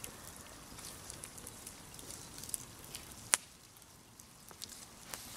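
Wood campfire crackling with scattered small snaps and pops, and one sharp, much louder pop a little over three seconds in.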